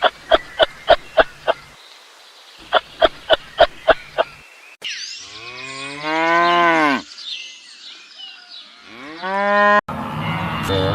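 A cow mooing: one long moo whose pitch rises and then falls, then a shorter rising moo. Before them come two runs of short, sharp, evenly repeated sounds, about four a second.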